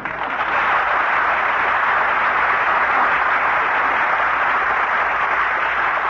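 Studio audience applauding steadily, heard on a 1942 radio broadcast recording.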